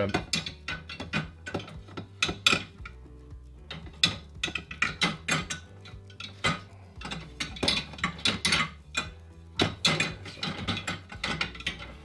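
Irregular clicks, knocks and rattles of ceramic plates and the wire dish rack of a Comfee Mini Plus countertop dishwasher as they are handled and fitted into place.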